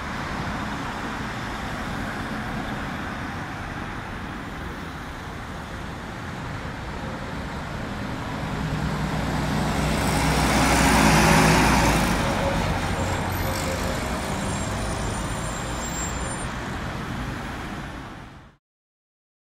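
Diesel engine of an Ikarus city bus driving past amid street traffic, growing to its loudest about ten to twelve seconds in and fading as the bus pulls away. The sound cuts off suddenly shortly before the end.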